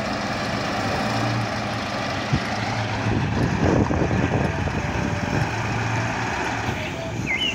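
Heavy four-axle dump truck's diesel engine running steadily as the truck drives slowly over rough dirt ground.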